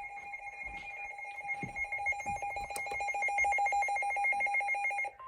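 Emergency alert tones from a radio receiver: steady electronic tones with a fast pulsing trill that grows louder. Near the end it cuts off abruptly and a single steady tone takes over.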